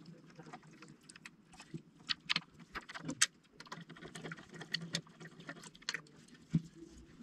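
Irregular small clicks, taps and light scrapes from a housing part being handled and fitted together by hand, with sharper knocks about three seconds in and about six and a half seconds in.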